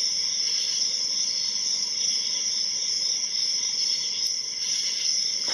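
Crickets trilling steadily, a continuous high-pitched chorus, with one faint tick about four seconds in.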